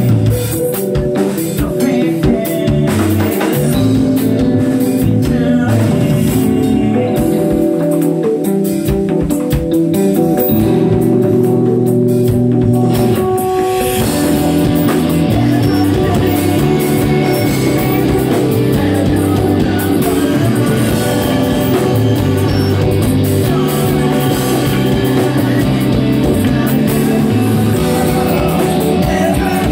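Three-piece alternative rock band playing live: electric guitar, bass guitar and a busy drum kit, with sung vocals. The arrangement changes about halfway through.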